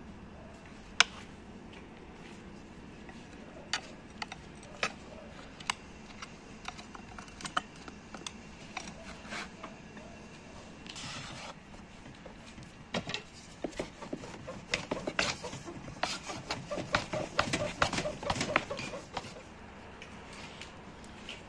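Butter being spread over rolled dough with a silicone spatula on a glass tray: scattered light clicks and taps, then a busy run of taps and scraping handling noise from about 13 to 19 seconds in.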